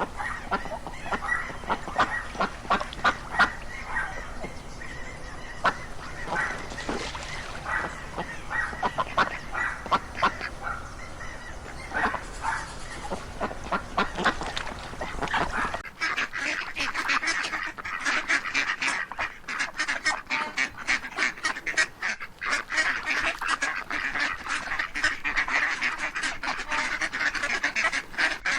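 A flock of waterfowl calling, many short calls overlapping. About 16 seconds in the recording changes abruptly: the low background rumble drops out and the calling becomes denser and busier.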